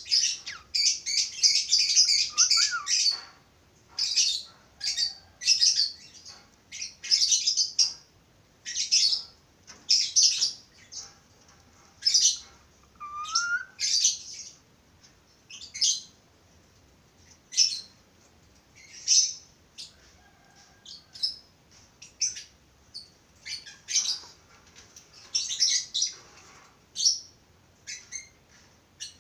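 Budgerigars chirping, a stream of short high calls that comes thick and fast for the first few seconds, then thins to a call about every second.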